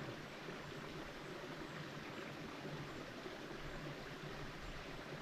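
River water running steadily, a faint, even rushing.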